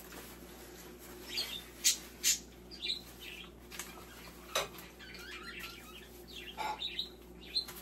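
A few sharp clicks and knocks of things being handled on a kitchen counter, with faint scattered chirps between them.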